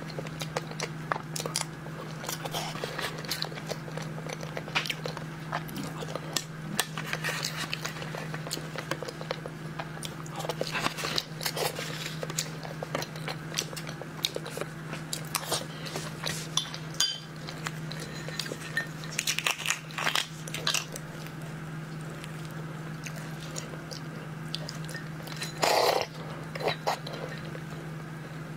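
Close-miked eating: wet mouth clicks and smacks while chewing soft sea urchin roe, with light taps of a metal spoon, over a steady low hum. Near the end, one louder rasping noise as a raw red shrimp is pulled apart by hand.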